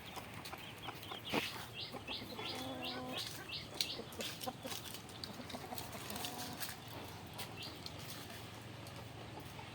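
Backyard chickens clucking, with runs of short high chirps and one longer call about two and a half seconds in. A couple of sharp knocks stand out, about a second and a half in and near the four-second mark.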